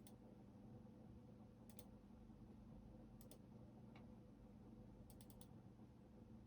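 Faint, sparse keystrokes on a computer keyboard: a single key, then pairs, and a quick run of four near the end, over a steady low hum.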